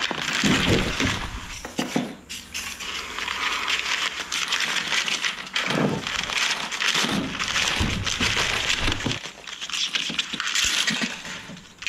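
Sheets of paper rustling and crinkling as they are handled and spread out, with many sharp crackles.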